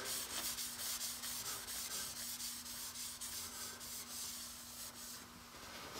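A flat sharpening stone is rubbed back and forth by hand over the cast-iron underside of a 30-inch G&L rotary table. The quick, scratchy strokes stop about five seconds in. The stoning knocks down burrs and high spots and cleans off surface rust.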